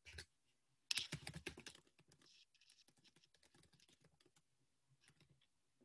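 Faint computer keyboard typing: a quick run of keystrokes about a second in, then scattered, fainter key taps.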